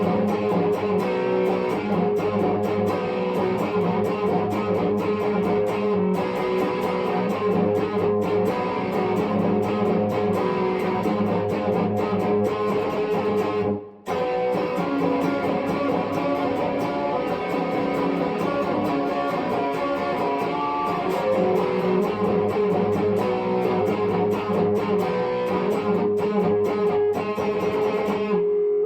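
Epiphone 1959 Les Paul Standard electric guitar being played, with sustained notes and chords. There is a brief drop-out about halfway through.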